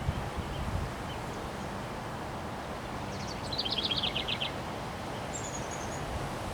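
Steady wind noise from a windstorm, with low gusts buffeting the microphone in the first second. About halfway through, a bird sings a fast trill lasting about a second, and a brief high twitter follows.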